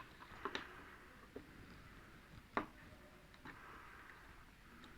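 A few light plastic clicks and taps as the retaining clips of an LED TV panel are lifted and pushed free, the clearest about two and a half seconds in.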